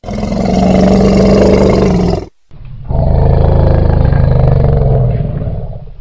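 Elephant calling: two long, loud, low, rough calls, the first lasting about two seconds and the second, after a short break, about three and a half seconds.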